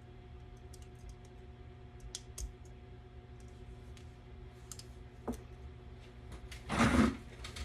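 Scattered light clicks and handling noise over a steady low electrical hum, with a louder brief clatter near the end.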